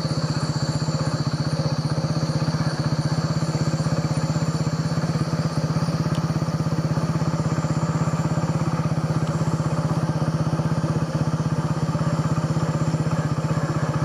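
Motorcycle engine running steadily at an even cruising speed as the bike is ridden, a constant drone with rapid even firing pulses.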